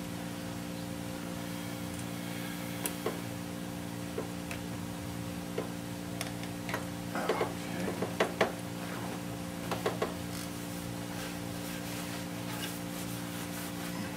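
Hand tools and bolts clinking and clicking on a bare Ford 302 V8 engine block while the oil pump pickup bracket is fitted: scattered short metal clicks and knocks, busiest from about seven to ten seconds in, then a run of light ticks. A steady low hum runs underneath.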